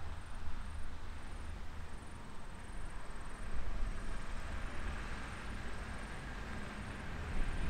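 Toyota Hilux ute towing a camper trailer along a gravel track: a steady low rumble of engine and tyres on gravel as it approaches.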